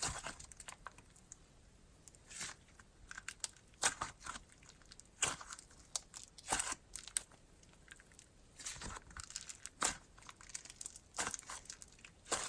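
Slime being stretched and squished by hand, giving off irregular crackling clicks and small pops.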